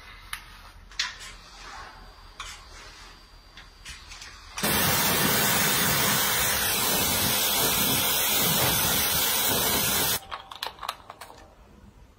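Hair dryer blowing with a steady rush of air. It switches on suddenly a little over four seconds in and cuts off about five and a half seconds later, with light clicks and handling noise before and after.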